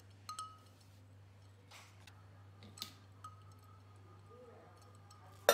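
Peeled raw banana being sliced with a knife into a stainless-steel mixer jar: a few light clicks and taps, each with a short metallic ring, then a sharp, louder clink near the end as the knife or a slice strikes the steel jar and rings on.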